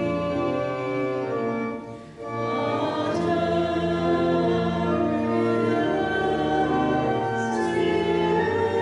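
Church congregation singing a hymn together in long held notes, with a brief break between phrases about two seconds in.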